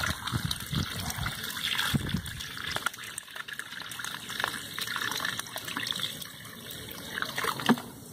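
Water being poured off out of a container holding small fish, coming in uneven splashes and trickles.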